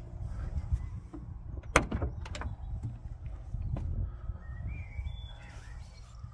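Car door being unlatched and swung open: one sharp latch click, then a few smaller clicks as the door moves, over a steady low rumble.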